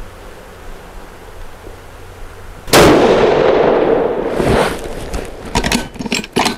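A single loud shot from a Magnum Research Mountain Eagle bolt-action rifle in 28 Nosler, about a third of the way in, with a long echoing tail. Near the end comes a quick run of sharp clicks as the bolt is worked.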